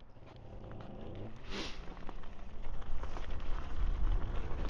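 Electric dirt bike pulling away and picking up speed: a low rumble with small crackling clicks from the tyres grows steadily louder. There is a short hiss about a second and a half in.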